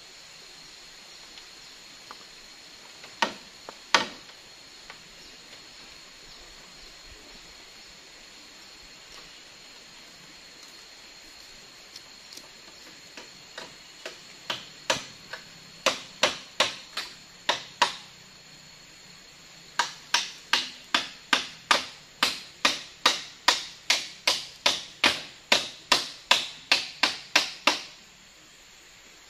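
Hammer driving nails into a wooden roof frame. Two blows come a few seconds in, then a run of blows that grows louder. After a short pause comes an even run of about three blows a second, which stops near the end. A steady high insect drone runs underneath.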